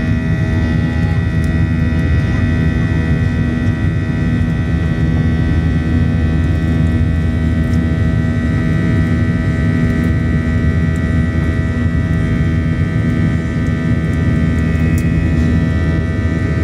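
Steady engine drone heard inside a jet airliner's cabin during the climb after takeoff: a low rumble of engine and air noise with several steady whining tones over it.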